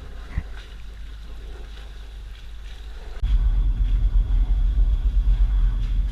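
Low, gusting rumble of wind buffeting the microphone, coming in suddenly about three seconds in, after a quieter stretch of faint background noise with one small click.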